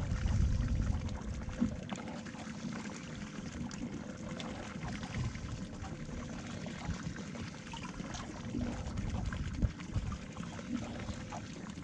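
Seawater slapping and trickling against the hull of a small fishing boat, with a few light knocks.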